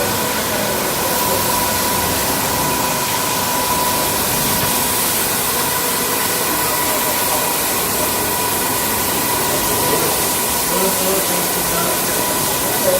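Automatic carpet washing machine running: a steady rushing hiss with a steady, constant whine over it.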